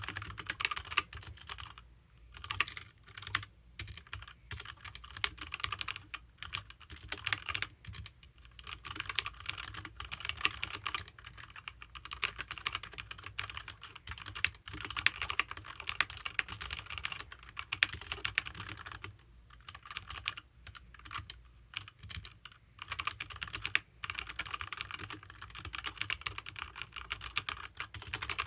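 Fast typing on a HyperX Alloy Origins mechanical keyboard with HyperX Red linear switches: rapid runs of key strokes, broken by a few short pauses.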